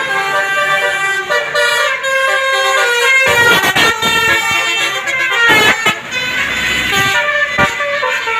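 Basuri telolet multi-tone bus horn playing a fast tune of short stepped notes, several horn tones sounding together.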